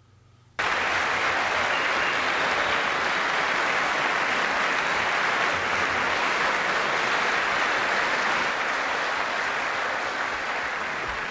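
A crowd applauding steadily, a dense mass of clapping that starts suddenly about half a second in and eases off slightly near the end.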